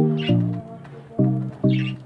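Background music: a melody of short, plucked-sounding low notes, about four in two seconds.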